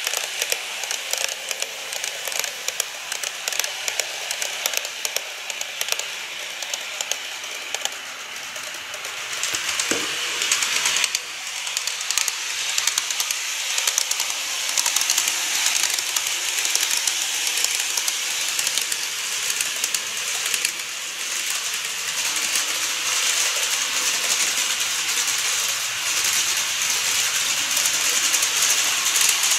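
N-scale model trains running on the track: a steady rattle of fine, rapid clicks from the wheels on the rails, with a hiss-like running noise. It gets a little louder after a change about ten seconds in.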